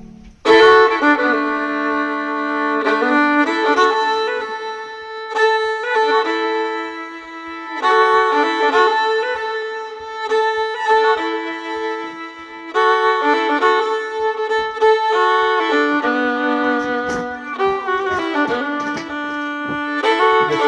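Background music: an instrumental track led by a violin melody of held and changing notes, starting abruptly about half a second in.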